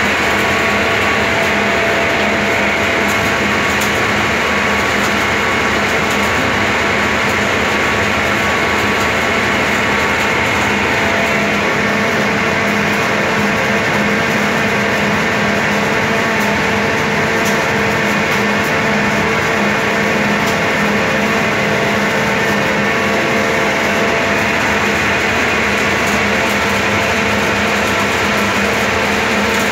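Flash butt rail welding machine running during a weld's low-voltage stage: a loud, steady machine hum that holds a constant pitch, with faint scattered crackles.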